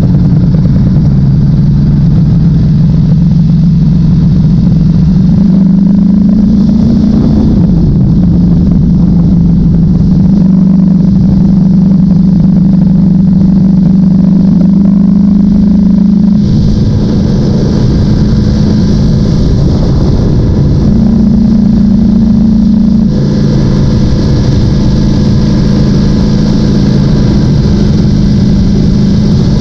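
Ducati Panigale V4's V4 engine running at an even cruising pace, heard from the bike. Its note rises briefly about six seconds in and shifts in pitch a little past halfway and again about three quarters through.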